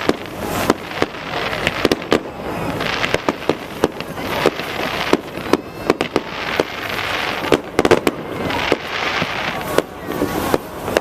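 Fireworks display going off: many sharp bangs, some in quick clusters, over swelling stretches of dense crackling noise.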